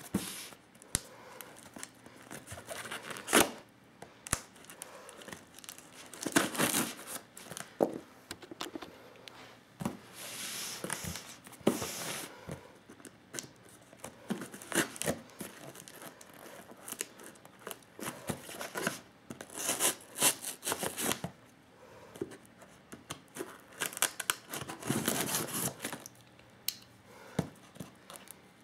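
Cardboard shipping box being cut and torn open by hand: irregular rips of tape and cardboard, scraping and crinkling, with sharp clicks and knocks between them.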